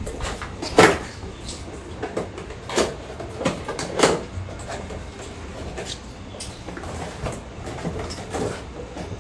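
Scissors snipping at a cardboard-and-plastic toy box, and the packaging being handled and pulled open, with a few sharp clicks and knocks.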